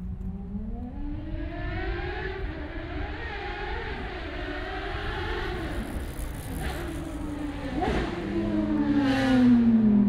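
Ferrari race car engine at high revs, its pitch climbing and dropping with gear changes. It grows louder toward the end and passes close by, its pitch falling.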